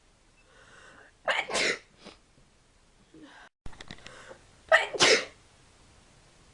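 A person sneezing twice, about three and a half seconds apart, each sneeze coming in two quick parts.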